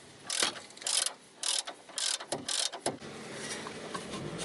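Ratchet wrench being worked back and forth, about six short clicking strokes roughly half a second apart, stopping about three seconds in.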